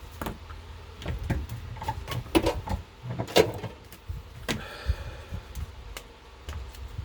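Irregular clicks and knocks of small hard objects being handled and set down on a workbench, the loudest two a little over two and three seconds in.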